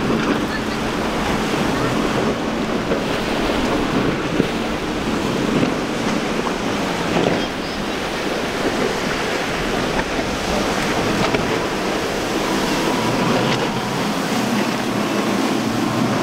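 Waves breaking and wind buffeting the microphone, with the outboard engines of a center-console boat running underneath as it crashes through the surf.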